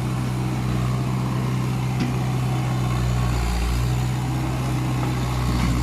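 Komatsu excavator's diesel engine running steadily with a low, even hum.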